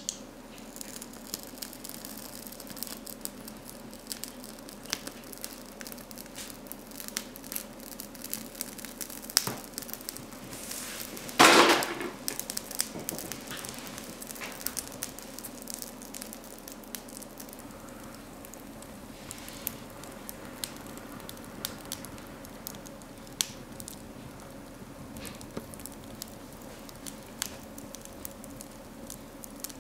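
Kindling fire catching in the firebox of a Husqvarna 226 cast iron woodstove, crackling with irregular pops and snaps. One louder rushing burst lasting under a second comes near the middle.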